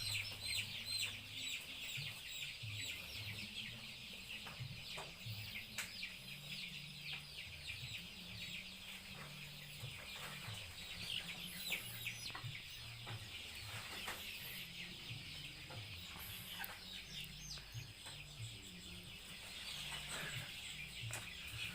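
Many Joper chickens peeping together in a dense, continuous chorus of short, high chirps, with a few faint knocks among them.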